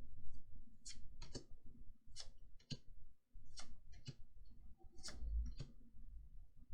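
Trading cards from a Magic: The Gathering booster pack being flicked through by hand, each card giving a short, sharp snap: about nine irregular clicks, one or two a second, with a low bump of handling against the table about five seconds in.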